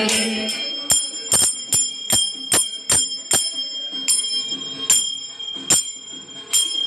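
Small puja bell (ghanti) rung by hand in uneven strokes, roughly two a second, each strike ringing on with a high bright tone.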